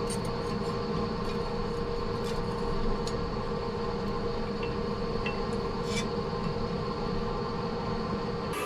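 Steady roar of shop machinery with a constant hum and a few faint ticks.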